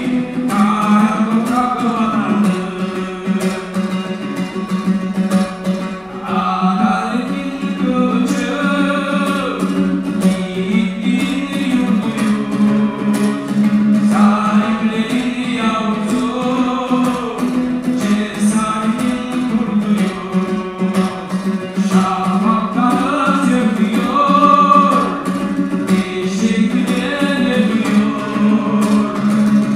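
Two-stringed dombra strummed in a fast, steady rhythm while a man sings a melody over it.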